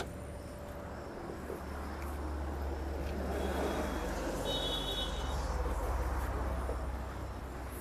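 A motor vehicle's low rumble that swells over a few seconds and eases off near the end, with a brief high chirping partway through.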